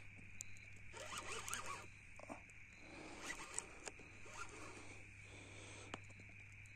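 Round baitcasting fishing reel cranked by its handle in a few short spells, a faint rasping whir from the gears and line as a heavy fish is reeled in.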